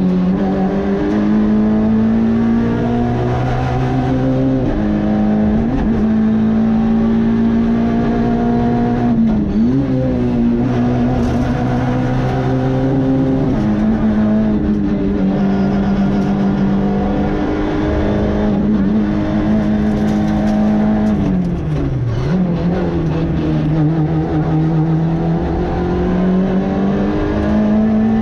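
Citroën C2 R2 rally car's 1.6-litre four-cylinder engine running hard at high revs, heard on board. Its note holds a fairly steady pitch, dips briefly a few times, then drops lower about three quarters of the way through and climbs back.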